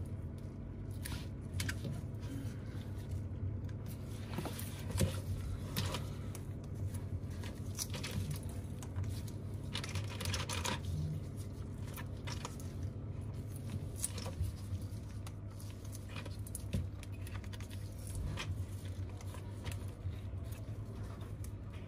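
Plastic spring clamps being picked up and clipped onto the edges of a tablet to hold a newly fitted screen in place: scattered light clicks and handling noise over a steady low hum.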